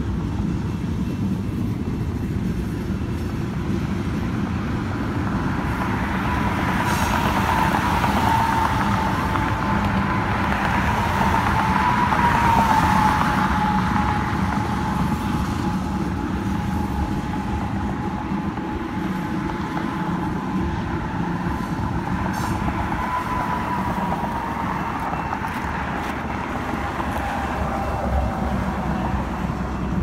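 Coal hopper cars of a freight train rolling past with a steady rumble of wheels on rail. A thin high whine comes in several seconds in, drifts slowly lower and fades near the end.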